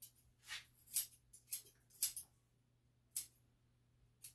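Long, pointed grooming scissors snipping through a dog's coat: a string of crisp, short snips, about two a second, with a pause of about a second after the middle.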